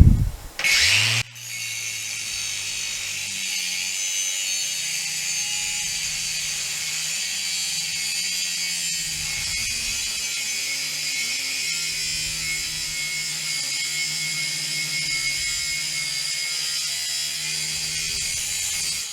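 A corded power tool runs steadily as it cuts a notch into metal. It starts about a second in and stops just before the end.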